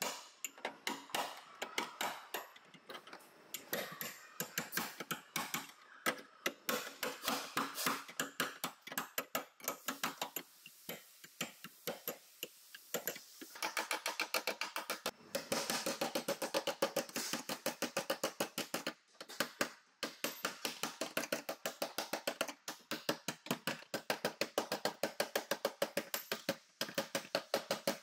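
Hand hammer blows on the steel body of a Toyota Corolla, a steady series of sharp metallic strikes about two a second, coming faster for a few seconds partway through. The blows are straightening the collision-crumpled door-opening flange.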